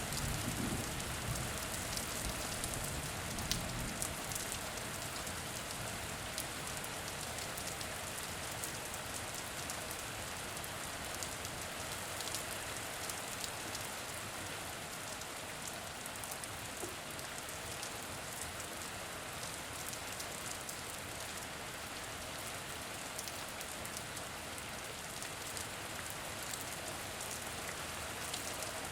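Steady rain falling on a hard surface, an even hiss with fine pattering drops. A low thunder rumble fades out in the first few seconds.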